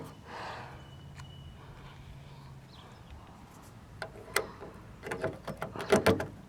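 An old key jiggled and worked in a stiff car door lock, giving a series of short metallic clicks and rattles in the second half. The lock does not turn freely and looks to need greasing.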